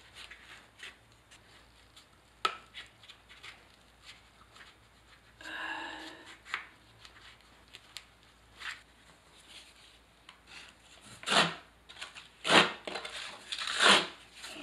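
Hand tool scraping and rubbing over waterproofing sheet membrane set in thinset, smoothing it into place: scattered light scrapes and taps, then three louder short strokes near the end.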